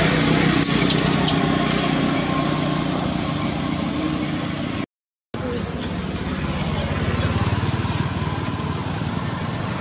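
A steady motor hum with a few sharp clicks about a second in, broken by a short dropout to silence about halfway through.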